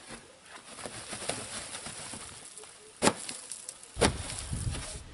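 Two sharp knocks about a second apart among light clicking and rustling, the second followed by a short low rumble.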